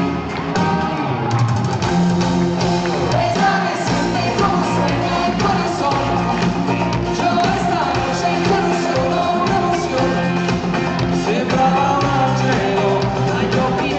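Live pop-rock band playing a song, with a voice singing over the music.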